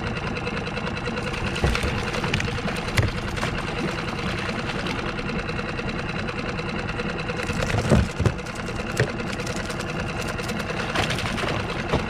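Small outboard motor on a skiff running steadily at trolling speed, with a few sharp knocks over it, the loudest about eight seconds in.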